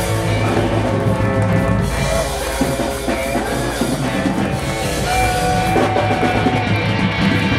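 Live rock band playing an instrumental passage: electric guitar over upright double bass and a drum kit. About five seconds in, a higher note is held for over a second.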